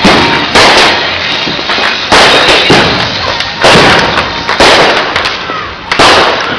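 Consumer fireworks going off in a rapid series of loud bangs, about one every half second to a second and a half, each followed by a fading crackle.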